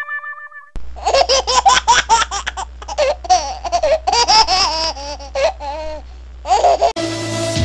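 High-pitched laughter in quick repeated bursts for about six seconds, with a low hum under it. Electronic music cuts in near the end.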